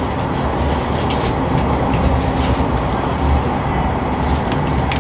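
Steady running noise of a moving train heard inside the passenger carriage: a continuous rumble with a deep low swell that rises and falls.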